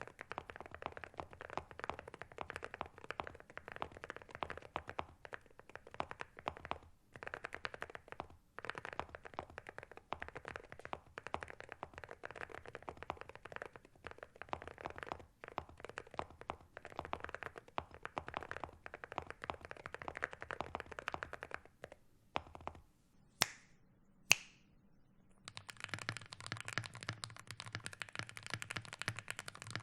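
Fast, continuous typing on a Monsgeek M1V3 mechanical keyboard with Akko Rosewood switches and ceramic keycaps: dense clacking keystrokes. Just over twenty seconds in, the typing stops and two sharp clicks follow. About three seconds later, fast typing resumes on a second mechanical keyboard, a Wooting with Geonworks Raw HE switches, with a deeper sound.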